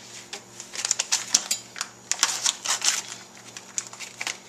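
Plastic fish packaging crinkling and crackling as a fillet is unwrapped onto a cutting board, in an irregular run of small crackles that is busiest in the middle.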